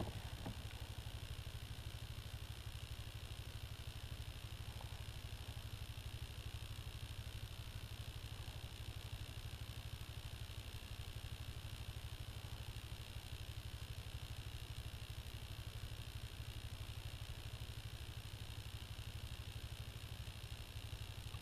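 A steady low engine hum with an even hiss above it, unchanging throughout.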